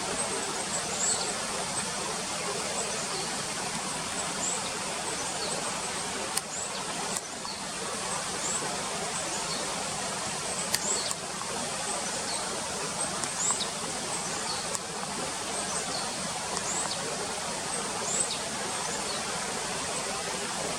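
Many short, thin, high calls from a foraging mixed flock of Japanese tits and varied tits, scattered throughout over a steady rushing background noise, with a couple of sharp clicks.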